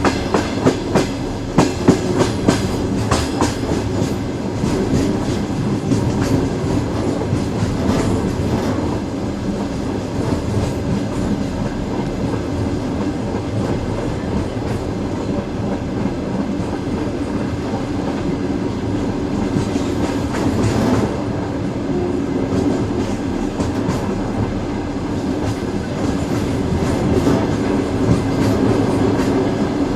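Train wheels running on rails. There are sharp clicks over the rail joints in the first few seconds, then a steady rumble and hum. A brief rushing swell comes about two-thirds of the way through.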